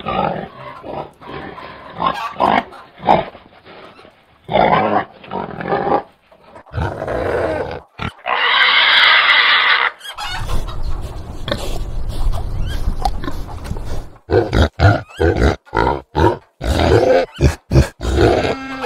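Domestic pigs grunting in short bursts, with one loud, drawn-out squeal about eight seconds in. From about ten seconds in a steady low hum runs underneath, and near the end the grunts come quickly one after another.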